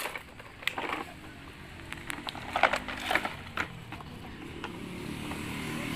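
Scattered light crunches and taps, in small clusters, over a faint steady low hum that grows louder near the end.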